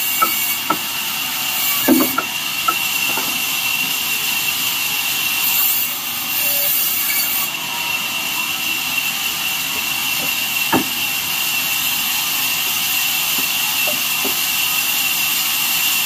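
Large band saw running steadily with a high, even whine, its blade cutting through wood blocks fed by hand. A few sharp knocks of wood pieces in the first few seconds and once more about eleven seconds in.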